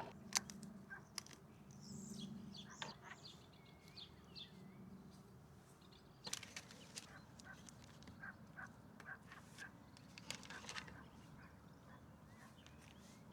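Faint outdoor ambience with short bird calls and scattered clicks and knocks, a small cluster of them about six seconds in and a run of light taps around eight to ten seconds in.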